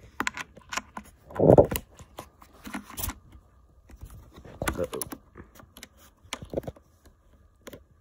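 Clicking, tapping and rattling of hands handling plastic radio accessories, coiled cords and a metal antenna connector close to the microphone. A louder bump comes about a second and a half in, and another near five seconds.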